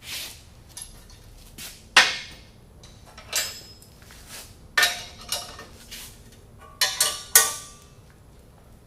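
Metal parts of a water pump bearing puller clinking and knocking as the bracket is repositioned, about ten separate sharp hits, some ringing briefly.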